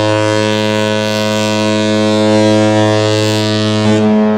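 Mein Schiff cruise ship's horn sounding one long, deep, steady blast, the ship's departure signal on leaving port; it cuts off near the end.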